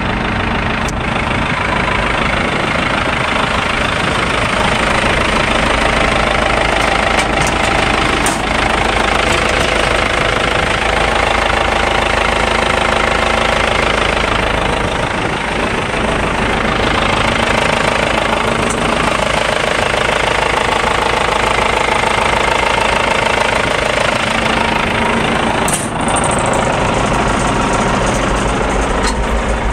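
Cat 926E wheel loader's diesel engine running steadily at idle, with a few sharp clicks.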